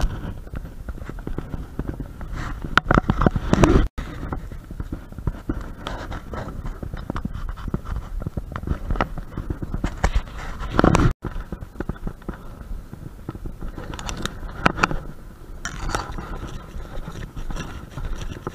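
Irregular scratching and scraping handling noise from a body-worn camera as its wearer clambers and walks over rough concrete, with scattered small knocks over a low rumble. The sound cuts out abruptly twice, where the recording is edited.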